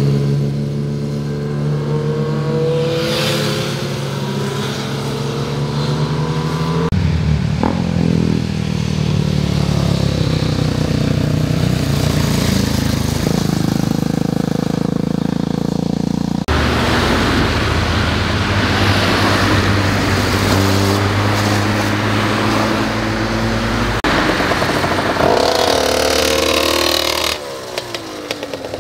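Motorcycle engines revving and accelerating as bikes ride through a tight bend one after another, their pitch rising and falling with throttle and gear changes. The sound changes abruptly several times as one bike's engine gives way to the next.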